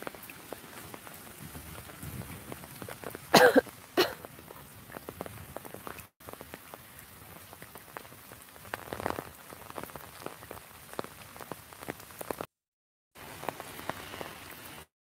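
Steady rain, with drops ticking on an umbrella held overhead. A short, loud voice-like sound comes about three seconds in, with a sharp click just after it, and the sound cuts out briefly a few times.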